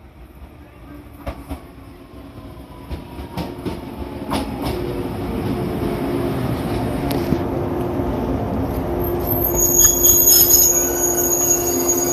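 Shinano Railway 115 series electric train pulling into the station and slowing, with wheels clicking over rail joints and a whine that falls in pitch. It grows louder as it draws level, and a high-pitched brake squeal sets in near the end as it comes to a stop.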